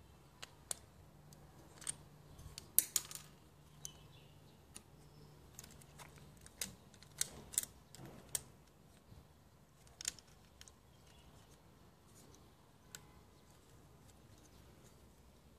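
Small plastic toy-gun parts being handled and fitted together: irregular sharp clicks and taps, a quick cluster of them about three seconds in, over a faint low hum.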